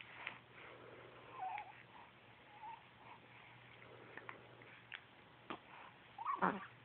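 Young baby cooing softly: a couple of short wavering coos, then a louder coo near the end that slides down in pitch.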